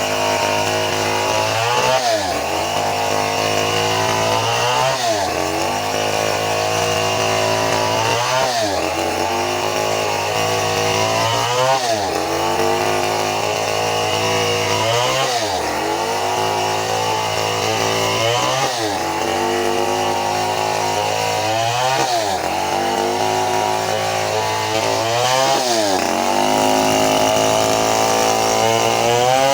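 Stihl 070 two-stroke chainsaw running under load, ripping lengthwise through very old teak. The engine pitch sags and recovers about every three seconds as the saw is worked through the cut.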